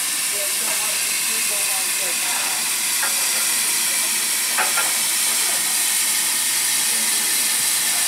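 Steam locomotive letting off steam: a steady, even hiss.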